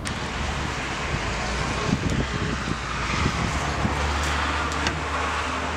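Street ambience: a steady low rumble of traffic, with a few light knocks and clicks.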